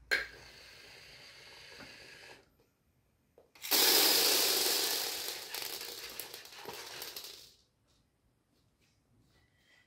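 LEGO Mindstorms EV3 robot's motors whirring for a couple of seconds, then, loudest of all, a mass of small pieces dumped from the robot's bin clattering and scattering across a wooden floor, fading out over about four seconds.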